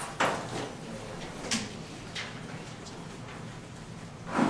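Sheets of paper rustling as they are handled and set down on a lectern, in a few separate short rustles. The loudest comes near the start and another just before the end.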